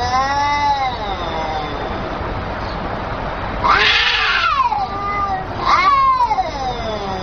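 Domestic cat meowing in three long, drawn-out calls: one at the start, a louder one about four seconds in, and another near six seconds. Each call rises and then falls in pitch.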